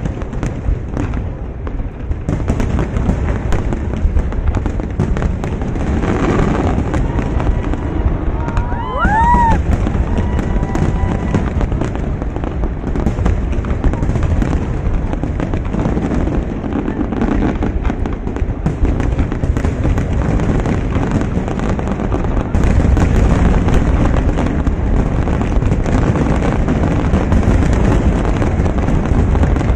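Dense barrage of aerial firework shells bursting in rapid succession: a continuous rumble of booms and crackling, growing louder about three quarters of the way in. A brief rising-and-falling whistle cuts through about a third of the way in.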